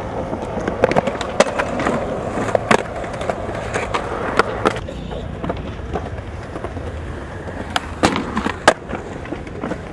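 Skateboard wheels rolling on smooth concrete, with several sharp clacks of boards popping and landing. The loudest clack comes a little before the end.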